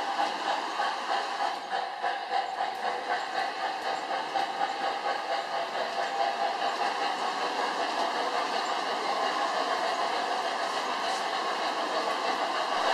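Electric model trains running on metal track: a steady rumble of wheels and motors with a quick rhythmic clicking over the rail joints, smoothing out in the second half.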